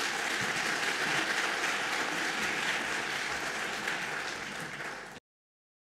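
Audience applauding, a steady clapping that cuts off abruptly about five seconds in.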